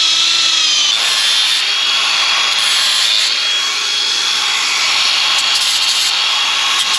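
A power tool cutting or sanding a timber slab, running continuously with a steady whine over a rough rasping noise. Its pitch sags slightly about a second in as it takes load.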